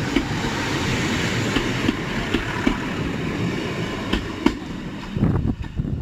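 Class 150 diesel multiple unit passing close by: a steady rumble of wheels on rail, with irregular sharp clacks over the rail joints, dying away at the end as the train moves off.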